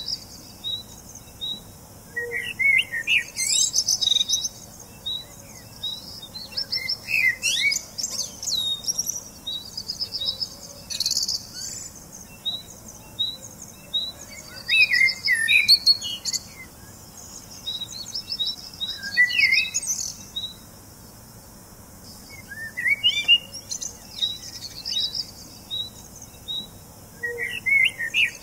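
Songbirds chirping and singing: a short high chirp repeats about twice a second, with bursts of quicker twittering song every few seconds.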